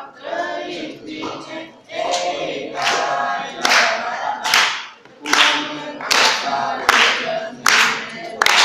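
A group of voices singing a song together, joined about two seconds in by hand claps on a steady beat, a little faster than one clap a second.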